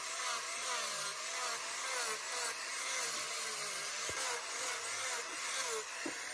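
Electric angle grinder with a sanding disc sanding down a carved wooden piece, a steady gritty hiss over the motor's whine, which wavers in pitch as the disc is worked over the wood.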